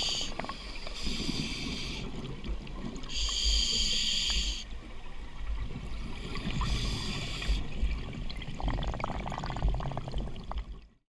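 Scuba diver's regulator breathing heard underwater: four separate bursts of exhaled bubbles, each about a second long, over a low rumble of water moving against the camera housing. The sound cuts off suddenly near the end.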